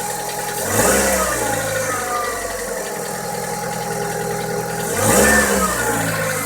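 Kia Rio's 1.4-litre G4EE four-cylinder engine idling, not yet warm, with the throttle blipped twice, about a second in and again about five seconds in, each rev rising and falling back to idle. The owner hears a knock in this engine that the dealer says it doesn't have.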